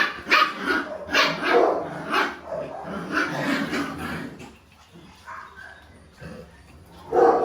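Puppies yapping and barking in quick short bursts, dying down about halfway through and starting up again loudly near the end.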